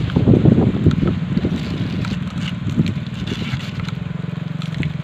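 Strong gusty wind buffeting the microphone in low rumbling gusts, heaviest in the first couple of seconds. From about two seconds in, a steady low motor-like hum comes through under it.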